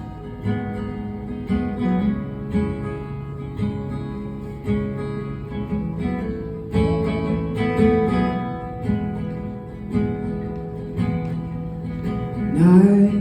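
Acoustic guitar playing an intro, with regular strummed chords about once a second; a singing voice comes in right at the end.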